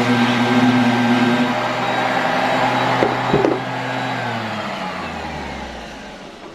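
Electric power sander running steadily, then switched off with a couple of clicks about three seconds in, its motor winding down with falling pitch and fading out.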